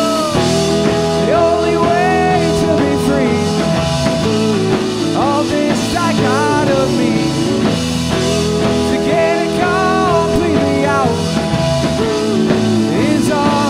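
Rock band playing an instrumental passage: a melodic lead line with sliding, bending notes over steady chords and bass.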